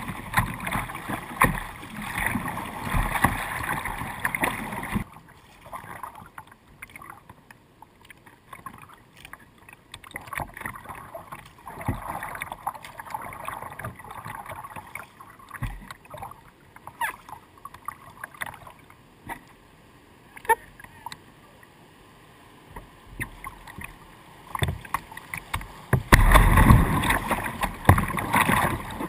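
Water rushing and splashing against the bow of a plastic whitewater kayak, with scattered short paddle splashes. The water is loud for the first few seconds, quieter through the middle, then loud again near the end as the bow runs into a rapid.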